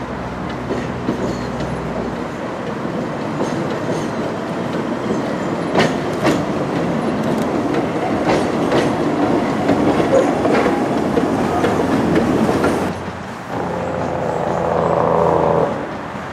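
Steam tram motor and its trailer car rolling past on the track, the running noise building as they near, with sharp wheel clicks over rail joints. Near the end a louder pitched sound lasts about two seconds.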